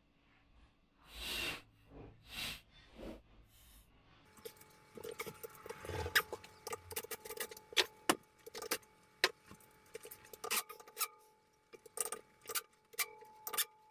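A few brief rustling swishes, then from about four seconds in a long, irregular run of light metallic clicks and clinks as mounting hardware is handled and a wind deflector is fitted to a roof rack.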